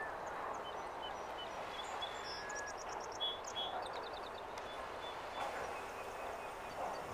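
Small birds chirping, with two quick high trills about two and a half and three and a half seconds in, over a steady outdoor hiss at the shore.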